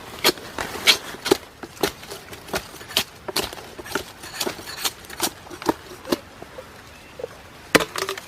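Repeated sharp chops of a blade cutting into a young bamboo shoot, irregular at about one to two strokes a second, with a short lull before two more strikes near the end.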